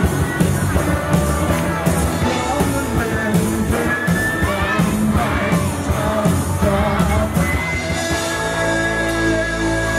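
Live rock band playing through a PA: drum kit, electric guitars, bass and keyboard, with a singer's voice over them. About eight seconds in the drums drop out and a held chord rings on.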